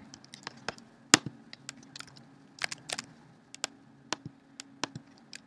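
Scattered single clicks and keystrokes from a computer keyboard and mouse, irregularly spaced, over a faint low hum.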